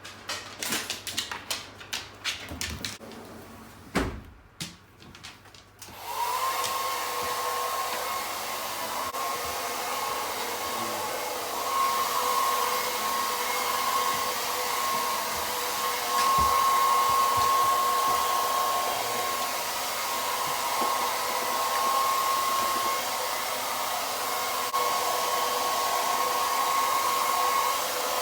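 A few clicks and a knock, then a hand-held hair dryer switches on about six seconds in and runs steadily, blowing with a high whine, drying a dog's fur.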